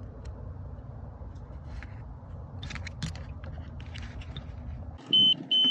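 Digital multimeter's continuity beeper sounding twice near the end, a loud steady high-pitched beep, showing the fuse under test has continuity and is good. Before it, light clicks and scrapes as the meter probes are put to the fuse.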